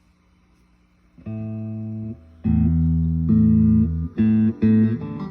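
Guitar played through a Roland Cube 60 keyboard amplifier: a faint steady amp hum, then about a second in a series of ringing chords, each held for a moment before the next.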